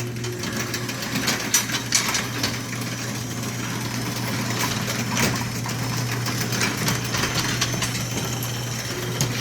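Garage door opener motor running steadily as it drives the door closed, with a continuous rattle and clicking from the drive. This is the automatic close triggered when the two-minute timer runs out.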